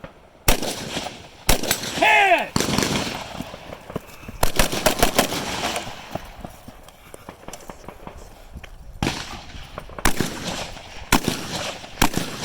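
Carbine gunshots fired in a series, some single shots about a second apart and others in quick strings of several shots.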